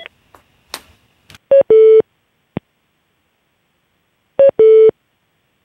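Videoconference system's electronic tone as the call is disconnected: a short higher beep, then a longer, slightly lower tone, played twice about three seconds apart. A few faint clicks come before it.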